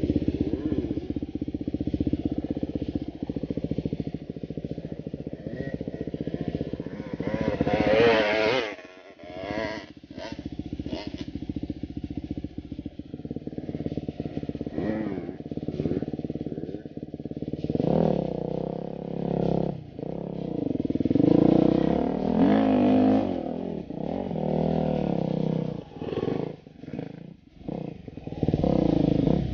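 Enduro dirt bike engine running under load on rough ground, the throttle opened and closed so the revs rise and fall; a hard rev about a quarter of the way in cuts off abruptly, and the second half has repeated bursts of revving with brief drops to near idle.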